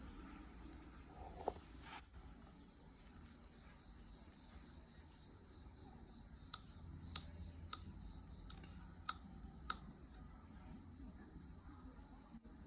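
Faint, steady high-pitched chorus of crickets, with a handful of sharp clicks over it, the first about one and a half seconds in and five more close together in the middle.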